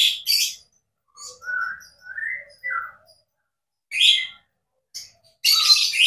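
Caged white-rumped shama (murai batu) calling: rough, hissy high bursts at the start, then about a second in three short whistled notes that slide up and down in pitch, followed by another rough burst around four seconds and more near the end.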